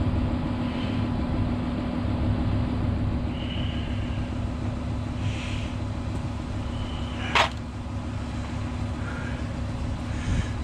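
Steady low machine hum with one sharp click a little after halfway.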